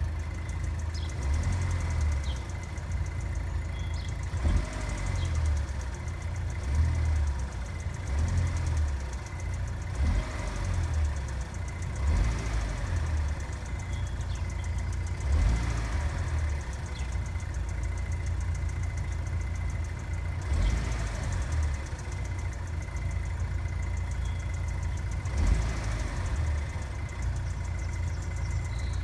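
GM LNF 2.0-litre turbocharged four-cylinder idling from a cold start, with a steady rapid tapping/ticking over the engine's rumble. The tick is a cold-start noise that goes away once the engine warms up.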